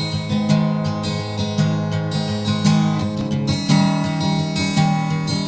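Acoustic guitar playing the strummed and plucked introduction to a song, steady chords with regular strokes.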